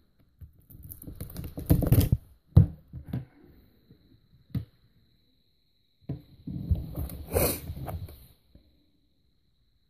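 Plastic shrink wrap on a cardboard box being cut and pulled off by hand, with rustling and a few sharp thunks of the box against the table.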